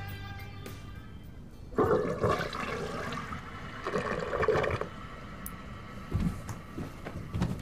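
A toilet flushing, the water rushing loudest in two surges about two and four seconds in.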